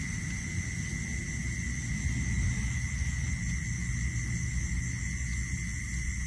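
Wind rumbling on the microphone over a steady, high-pitched chorus of night insects.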